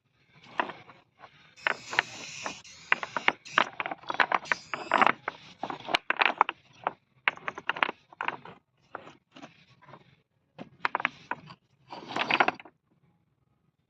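Irregular scraping and crunching: a quick, uneven run of clicks and scratches that thins out after about seven seconds, with a longer scrape near the end.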